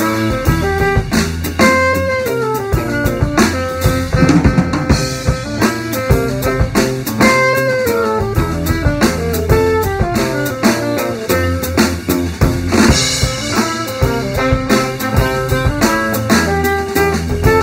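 Jazz trio playing: drum kit and guitar under a busy melodic line of quickly changing notes.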